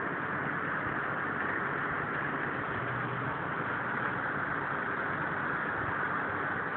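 Steady whirring hiss with a faint low hum from an electric fan running, even throughout with no changes.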